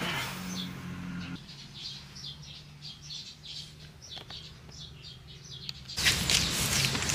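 Small birds chirping repeatedly over a steady low hum from an electric fan. About six seconds in, it cuts to a louder, even rush of outdoor noise.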